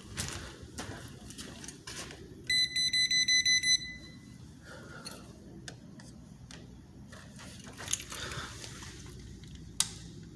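Klein voltage tester beeping: a quick run of about seven high beeps lasting just over a second, among scattered clicks and handling noise.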